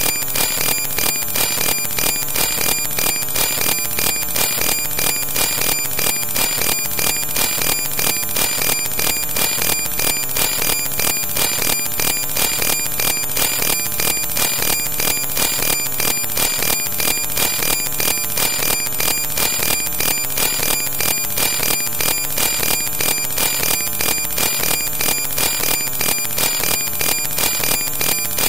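Loud, unchanging electronic static: a hiss-like buzz with a rapid, even pulsing and steady whining tones in it, and no voices or room sound coming through.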